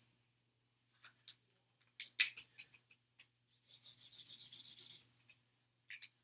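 Felt-tip highlighter rubbing across chart paper in quick back-and-forth strokes, a faint scratchy rasp lasting just over a second, after a few light clicks and taps from handling the pen.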